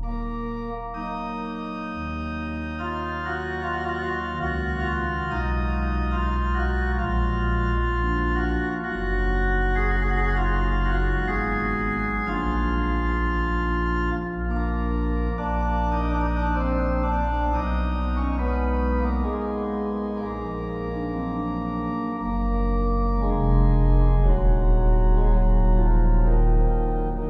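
Slow, sustained organ music: held chords that change every few seconds over deep bass notes.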